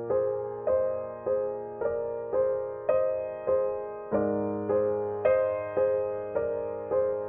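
Background music: slow, gentle piano notes struck at an even pace, a little under two a second, each ringing and fading before the next. A new low bass note comes in about four seconds in.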